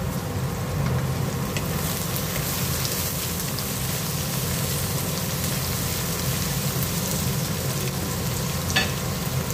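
Sliced chayote, carrots and onion sautéing in a hot wok, a steady crackling sizzle. A short click about nine seconds in.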